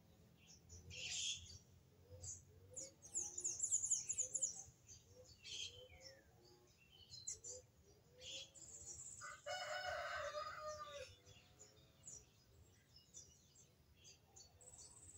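Birds chirping and twittering, over a steady series of low repeated calls. One louder, longer call lasts about a second and a half, nearly ten seconds in.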